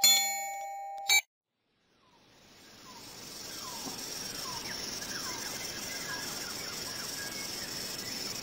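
A bright, bell-like struck chime rings and stops short about a second in. After a brief silence a steady hiss fades in, with faint short chirps over it.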